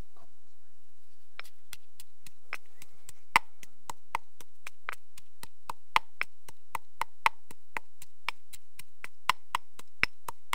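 Pestle pounding chilies in a mortar: steady, sharp knocks about three to four a second, starting after a brief pause. The chilies are being broken down into a rough paste.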